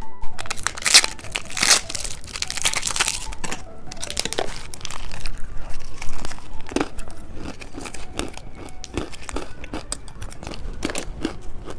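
Candy wrapper crinkling and tearing as it is opened by hand, in dense crackles for the first few seconds and then scattered crinkles.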